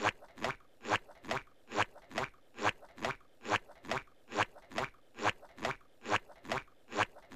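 A steady run of short crunching knocks, a little over two a second, even and regular throughout.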